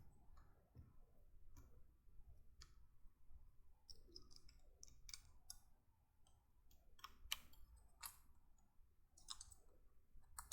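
Faint, irregular clicks of plastic LEGO pieces being handled and fitted together, a few sharper ones in the second half.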